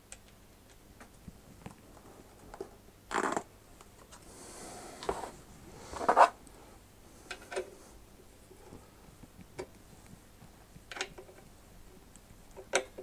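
Scattered knocks, clicks and a short scrape from hands handling a plastic oil tub and a small hand tool at an air compressor's crankcase while excess oil is drained. The loudest knock comes about six seconds in.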